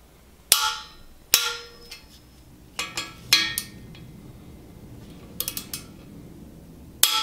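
Sharp metallic clinks and knocks, about seven spread unevenly, some ringing briefly: a ratchet wrench with an Allen socket working on the oil sprayer nozzle bolts in a bare aluminium BMW N54 engine block.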